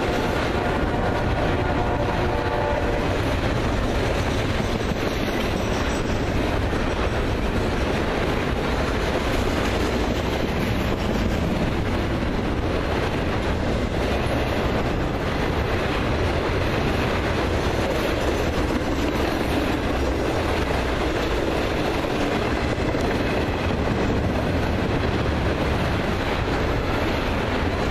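Double-stack intermodal container train rolling past: a steady rumble and clatter of wheels on the rails. The locomotive horn is still sounding at first and stops about three seconds in.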